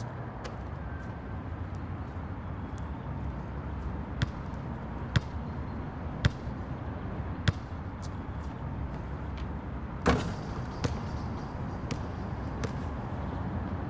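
A basketball bouncing on a hard court, single sharp thuds about a second apart, with a louder hit about ten seconds in, over a steady low outdoor rumble.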